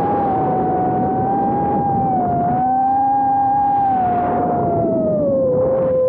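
Brushless motors and propellers of a 4-inch freestyle FPV quadcopter whining, the pitch wandering with throttle, dipping lower about five and a half seconds in and then climbing again, over a rush of prop wash.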